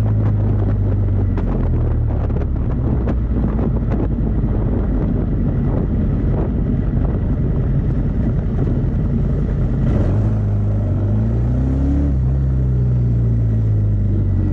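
Kawasaki VN750 Vulcan's V-twin engine running steadily under way, with wind buffeting the microphone in the first half; the engine pitch rises about ten to twelve seconds in as the bike accelerates.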